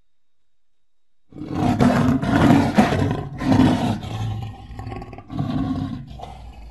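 Lion roar sound effect, standing in for the extinct Mosbach lion. After about a second of quiet, a loud, deep roar breaks out and rolls on in several heavy pulses that grow weaker toward the end.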